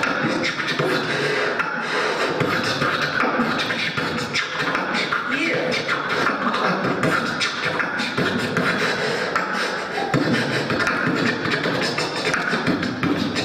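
Dubstep-style beatboxing by a teenage boy, his hands cupped around a handheld microphone: a dense, unbroken run of percussive mouth clicks, kicks and snares mixed with bass and pitch-gliding sounds.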